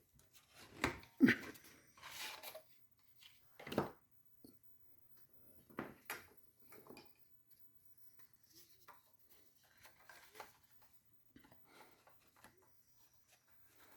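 Scattered knocks, clicks and rustles of handling as the sanding belt on a Bucktool belt grinder is swapped for a Trizac belt. The louder knocks fall in the first few seconds, followed by fainter rustling.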